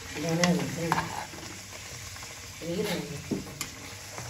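Puris deep-frying in hot oil in a kadai, the oil sizzling steadily. A few sharp clicks of the spatula against the pan come as the puris are turned.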